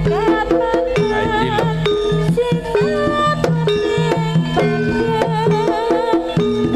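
Javanese jaranan ensemble music played through a loudspeaker sound system: kendang hand drums beating under short repeating pitched gamelan notes, with a wavering higher melody line above.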